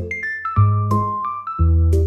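Background music: a light keyboard tune of quick, bright plucked notes over a bass note that changes about once a second.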